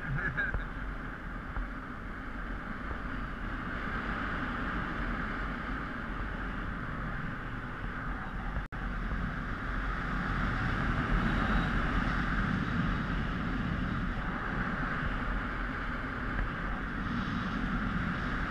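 Steady rush of wind and airflow over a helmet-mounted action camera's microphone during paraglider flight, with a low rumble beneath. It cuts out for an instant about nine seconds in.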